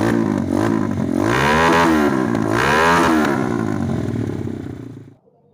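Motorcycle engine revved twice through an aftermarket exhaust, its pitch rising and falling each time, then stopping suddenly about five seconds in.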